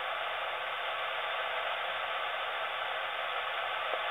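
Radio scanner's speaker playing steady narrowband-FM static from an open channel on the SR5GMN 70 cm amateur repeater (439.225 MHz), with no voice on it. It cuts off with a sharp squelch-tail burst at the very end.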